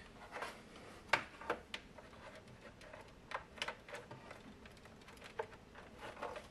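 Light clicks, taps and rustling from hands handling small parts and a cable on the opened console, with the sharpest click about a second in.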